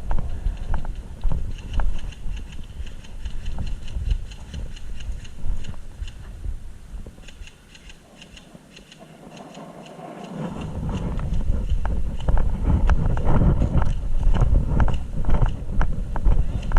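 Footsteps of a player moving over rough ground, a run of regular steps, with rumbling noise on the microphone. It quietens about halfway through, then grows louder again.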